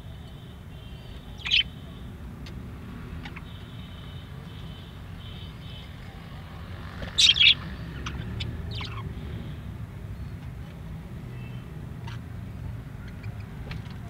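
Budgerigars chirping: a short sharp chirp about a second and a half in, a louder double chirp around seven seconds and another a little after, with faint chatter and small ticks between. A steady low rumble runs underneath.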